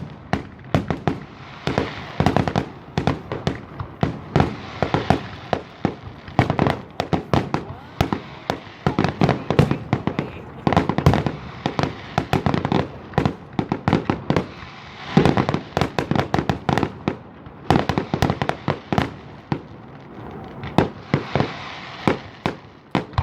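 Fireworks going off continuously: a dense run of bangs, pops and crackling, many shots a second at times, with a few short lulls.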